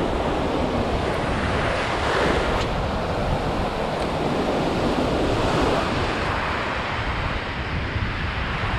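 Small surf breaking and washing up a sandy shore in slow surges, with wind rumbling on the microphone.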